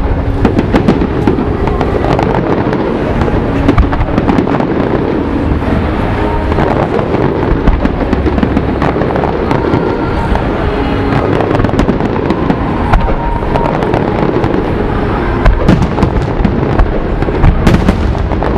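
Aerial fireworks going off in rapid succession: a continuous barrage of bangs and crackles with no pause.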